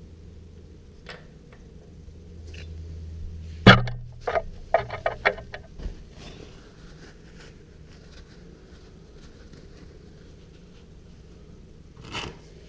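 Hand tools and parts being handled during work on a motorcycle engine: a sharp knock about four seconds in, a quick run of clicks and clatter over the next two seconds, and another short knock near the end.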